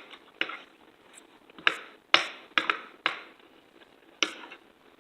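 Cutlery clicking and clinking against dishes: a run of about nine sharp, separate taps and clinks, uneven in spacing.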